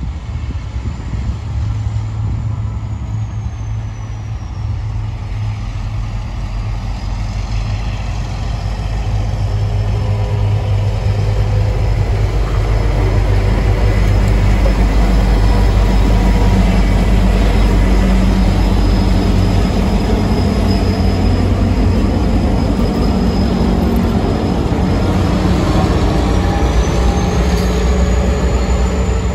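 A diesel freight train headed by a G class locomotive and two 1950s B class locomotives, all with EMD two-stroke diesel engines, approaching and passing close by. The deep, steady engine drone grows louder over the first half as the lead locomotive draws level, then stays loud with wheel and rail noise as the B class units go by.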